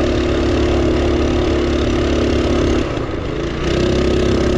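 Duromax 212cc single-cylinder engine on a mini bike, running on propane and pulling steadily under throttle. About three seconds in, the throttle eases off and the engine note drops for under a second, then picks back up.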